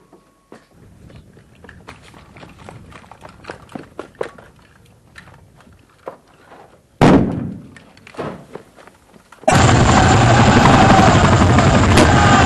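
Battle-scene gunfire: many scattered sharp pops, mostly faint. About seven seconds in comes one loud blast, with a smaller one just after. At about nine and a half seconds a loud steady noise cuts in abruptly and holds.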